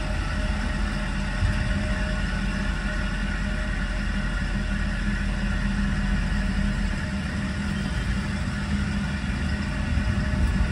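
Passenger train moving slowly through a station: a steady diesel engine drone with rumbling wheel and rail noise, heard from inside a carriage.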